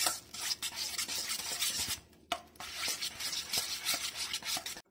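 Wire whisk beating soft butter in a stainless steel bowl, a fast run of scraping strokes against the metal with a short break about two seconds in. The butter is being creamed until smooth.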